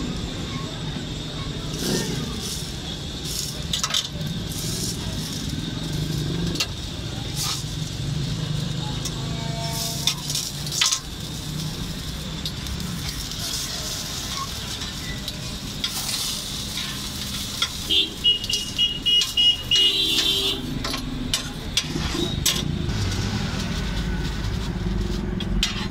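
Frying hiss from a hot flat steel griddle with a bun toasting on it, over steady traffic noise, with occasional sharp clicks of a metal knife and spatula on the steel. About two-thirds of the way in comes a short run of high pulsing beeps.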